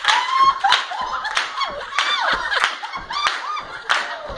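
A group clapping hands together in time, about one and a half claps a second, with high voices calling and singing over the beat.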